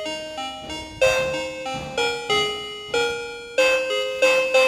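Toy vending machine playing its built-in electronic tune through its small speaker: a simple melody of short, plinking keyboard-like notes.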